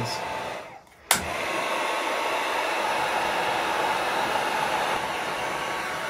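Handheld electric heat gun blowing steadily with a faint motor whine while shrinking heat-shrink tubing over wire splices. Its airflow drops out briefly just before a second in and comes back with a sharp click, and another click near the end cuts it off.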